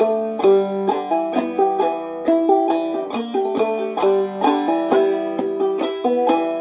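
Five-string banjo played clawhammer style in open G tuning (gDGBD): a steady run of struck melody notes in the key of G, with the strings ringing on between strokes.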